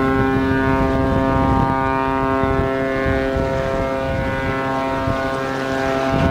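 A ship's horn sounding one long, steady blast that starts suddenly, over low wind noise.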